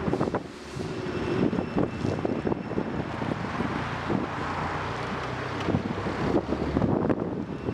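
Propane-powered forklift engine running as the truck drives and turns, with frequent short clicks and rattles over the steady drone.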